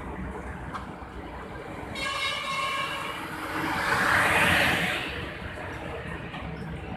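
Heavy goods truck sounding its multi-tone air horn for about a second and a half as it approaches. It then passes close by with a loud rush of engine and tyre noise that peaks about four seconds in and fades quickly.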